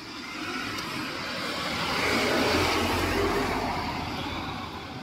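A car driving past close by: tyre and engine noise swells to a peak about halfway through and fades away.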